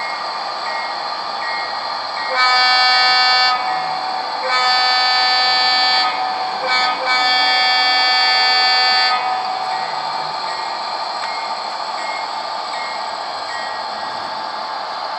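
Onboard sound decoder of a Rapido HO-scale Budd RDC model playing a steady diesel engine run with an air horn. The horn sounds the grade-crossing pattern: two long blasts, a short one and a final long one.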